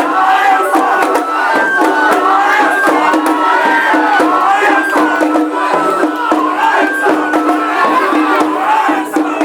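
Japanese festival music: a high melody in held, stepping notes over a steady low tone, with percussion strikes, mixed with a crowd shouting and chanting.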